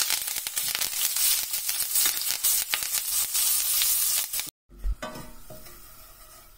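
Curry leaves and green chillies hitting hot oil with ground spices in a stainless steel frying pan: a loud sizzle full of sharp crackles as the tempering fries. About four and a half seconds in it cuts off abruptly, then comes back as a fainter sizzle that slowly dies down.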